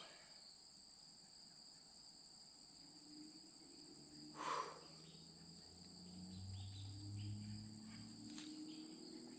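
A faint, steady chorus of crickets holding two high, unbroken tones. There is a brief rustle about halfway through, and a faint low drone rises and falls in the second half.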